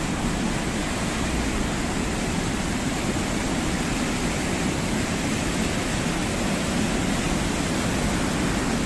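Fast floodwater rushing steadily across a submerged road, an even, unbroken rush of water.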